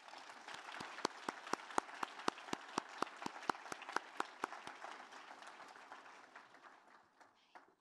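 Audience applause, with one clapper close to the microphone standing out as sharp, even claps about four a second. It dies away near the end.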